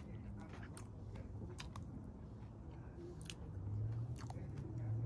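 Close-miked chewing of food, with wet crunches and sharp mouth clicks scattered through. A low hum comes in about three and a half seconds in.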